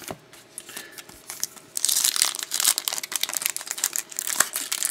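Wrapper of a 2011-12 Elite hockey card pack crinkling and tearing as it is torn open by hand. A dense crackle starts about two seconds in, after a few light clicks.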